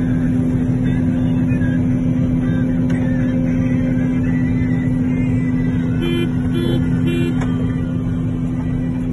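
Combine harvester running steadily at working speed while it unloads threshed sorghum: a loud, even drone with a constant hum. Three short beeps sound about six seconds in.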